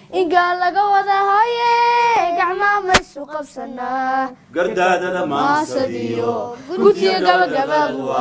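A girl singing unaccompanied in a high voice, holding long notes, with a sharp click about three seconds in. From about halfway through, several lower voices sing together.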